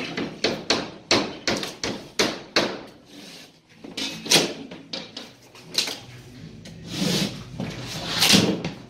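Plasterboard being cut and handled on the sheet stack: a quick run of sharp knocks and scrapes, then longer scraping swells near the end as the cut section of board is worked free.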